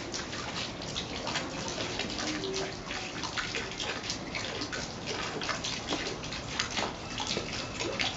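Thin fountain jet falling into a lily pond: a steady splashing patter of water drops on the surface and lily pads.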